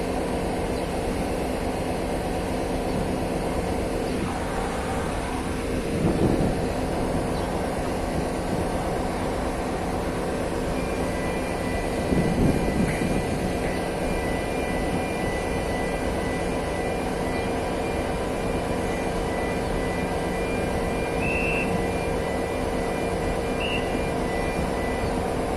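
Large crawler crane's diesel engine running steadily as the crane slowly lowers a suspended load, with two brief louder swells partway through.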